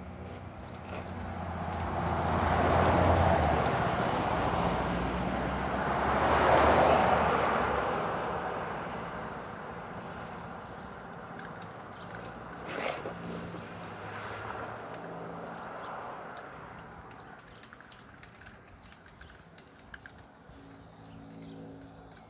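Two vehicles passing by one after the other, each a rushing sound that swells and fades over a few seconds, followed by a single click and faint outdoor background.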